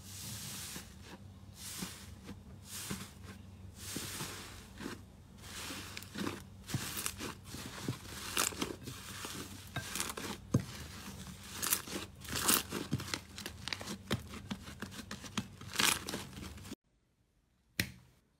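Thick slime being pressed, stretched and kneaded by hand, giving a run of irregular crackles, pops and tearing sounds as it is pulled apart. The sounds stop abruptly near the end, followed by a single sharp click.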